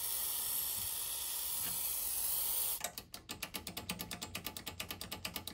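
Aerosol contact cleaner hissing steadily through its straw into the speaker B selector push switch of a Sony STR-D311 receiver, a switch that is dirty and not working. The spray cuts off about three seconds in, and rapid, even clicking follows as the switch button is pressed over and over to work the cleaner in.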